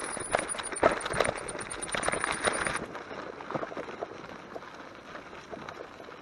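Bicycle tyres crunching over a loose gravel track, with a rapid, uneven clatter of small knocks from the stones and the bike over the bumps; it grows quieter about three seconds in.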